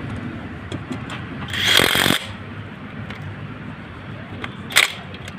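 Power tool, most likely an impact wrench, tightening the Ertiga's refitted front strut fasteners. A harsh hammering burst of about a second comes a little after the start, then a short sharp burst near the end, over steady workshop background noise.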